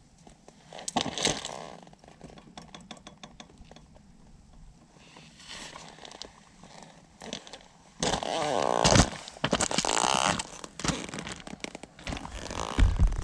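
Broken motorcycle drive chain clinking and rattling as it is handled, with boots crunching on coarse gravel. Sharp clicks come about a second in, and the loudest stretch, a couple of seconds of dense crunching and rattling, comes about two-thirds of the way through.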